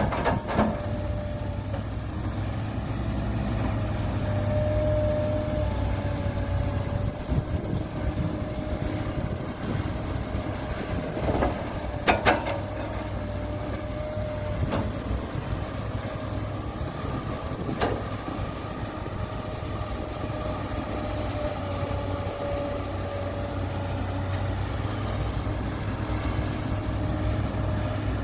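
Heavy diesel earthmoving machinery running steadily under load, with a steady whine over the engine rumble. A few sharp metallic clanks come in the middle, the loudest pair about twelve seconds in.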